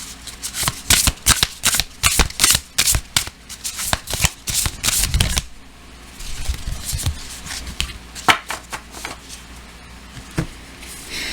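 A deck of oracle cards being shuffled by hand: a quick run of flicks and snaps for about five seconds, then a few scattered taps and slides as the cards are handled.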